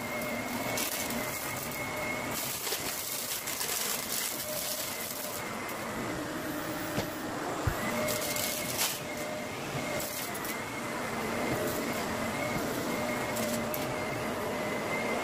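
Upright bagless vacuum cleaner running on carpet, a steady motor hum with a faint high whine that swells and fades as it is pushed back and forth, raised in pitch by double-speed playback. A couple of small clicks come about halfway through.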